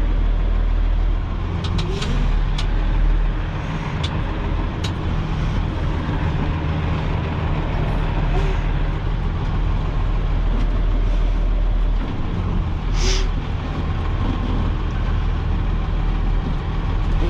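Dump truck's diesel engine running steadily at low revs, heard from inside the cab as the truck is driven slowly back and forth over dumped rock to compact it. A few sharp clicks early on and a short hiss of air late in.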